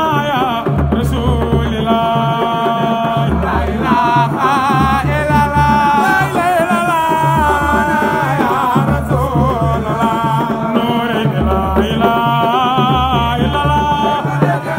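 Sung Sufi zikr chant: a voice carrying a wavering, ornamented melody over a repeating low bass pattern.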